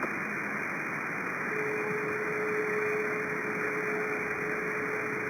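CB radio receiver on single sideband putting out steady static hiss between transmissions. About a second and a half in, a steady whistle tone comes in and holds.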